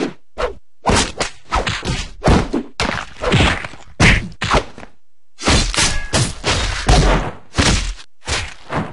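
Rapid string of cartoon fight sound effects: punches, kicks and blade hits landing one after another with short whooshes between them, stopping for a moment about five seconds in before the blows resume.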